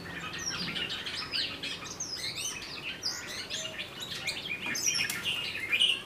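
Several small birds chirping and calling at once, a busy stream of quick, overlapping high notes, loudest near the end.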